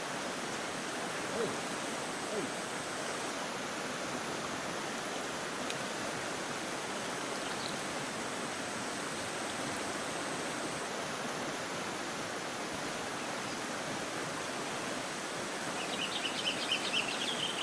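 River water rushing steadily over a rocky, shallow bed. Near the end, a short run of rapid high-pitched ticking joins the rush.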